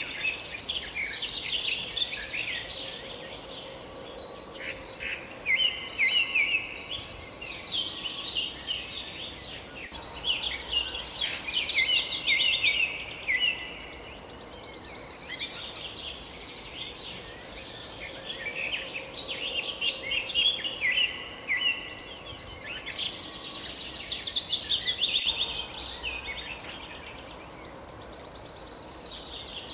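Several small songbirds chirping and singing in overlapping bursts of short, quick chirps, with a high trill that comes back about every fourteen seconds.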